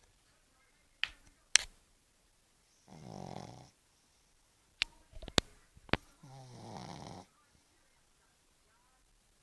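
Pug snoring: two long rasping snores about three seconds apart. Several sharp clicks come around and between them.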